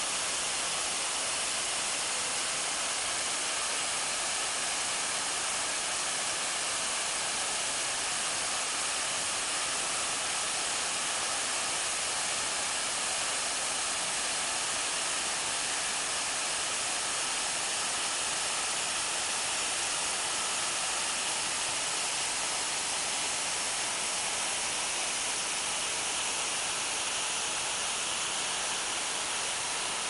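Waterfall pouring into a rock pool, a steady rushing hiss.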